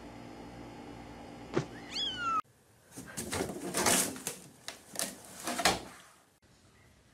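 A kitten gives one short meow about two seconds in. Then comes a run of knocks and rustles as a cat scrambles inside a laundry hamper, with the lid banging shut near the end.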